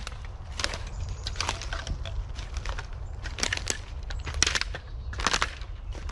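Footsteps crunching through dry fallen bamboo canes and leaf litter, about one crunch a second, over a steady low rumble.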